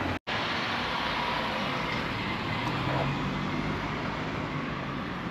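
Street traffic noise: a car drives past, a steady rush of tyre and engine noise with a low engine hum strongest a little past the middle. There is a brief cut to silence just after the start.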